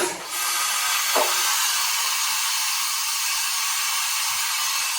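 Compressed air hissing steadily for about five seconds from a 1998 Fadal 3016L vertical machining center during a tool change, with a short knock about a second in.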